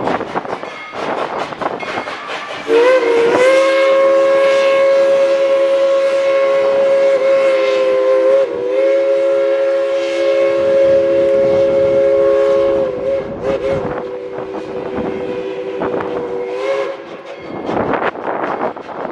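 Steam locomotive's chime whistle sounding one long multi-note blast, with a brief break partway and weaker over its last few seconds, over the train's running noise.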